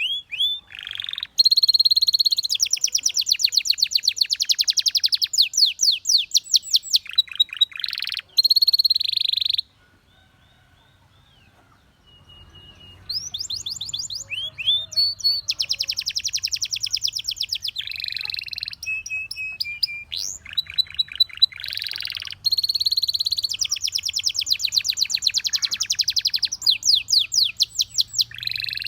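Canary singing: fast trills of rapidly repeated notes alternating with held whistles. The song breaks off for about two seconds a third of the way in, then resumes.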